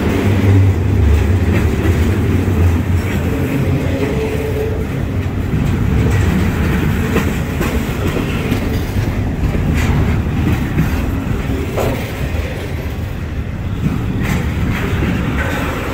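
Double-stack intermodal freight train's container well cars rolling past: a steady, loud rumble of steel wheels on rail with occasional clacks and knocks as the wheels cross rail joints.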